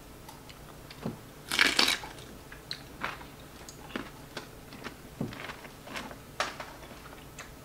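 Close-miked eating: food being chewed and crunched, with scattered light clicks of chopsticks against bowls and plates. The loudest sound is a longer crunch about a second and a half in.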